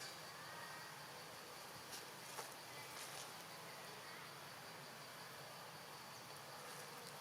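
Faint, steady outdoor insect buzz: a high, even drone with a few soft clicks and faint short chirps over it.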